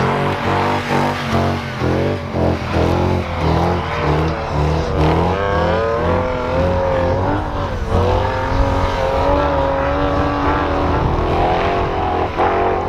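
Off-road 4x4 engines revving hard while the trucks churn through deep powder snow. The engine note wavers up and down as the wheels spin and grip, typical of engines held near the rev limiter.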